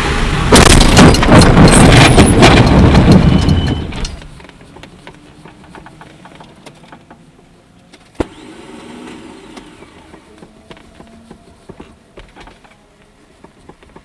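A race car sliding off and coming to a stop after a spin, a loud rumbling with many sharp clattering knocks that dies away about four seconds in. A quiet cabin follows, with a single sharp click about eight seconds in.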